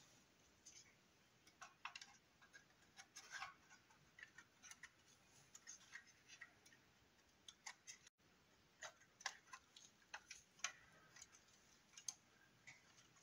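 Faint, irregular small clicks and taps of a plastic scale model car being handled in nitrile-gloved hands.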